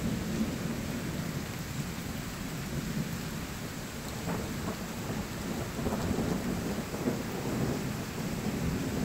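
Steady downpour of rain, a dense even hiss with a low rumble underneath, and a few sharper ticks around the middle.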